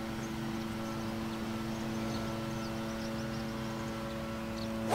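A golf club strikes a ball off the tee with one sharp crack right at the end. Underneath runs a steady low hum of several held tones.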